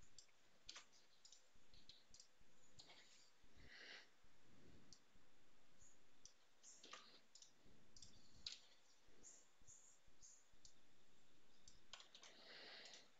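Faint, irregular clicks of a computer mouse and keyboard as commands are copied and pasted into a terminal.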